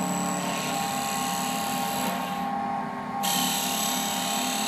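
Automatic wood bead lathe running, its spindle humming steadily while the cutters shave a spinning wooden blank with a high, hissing cutting noise. About two and a half seconds in the cutting hiss drops away for under a second, then comes back.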